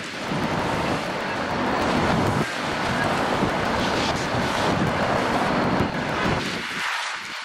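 Wind buffeting the microphone in irregular gusts over the steady noise of street traffic.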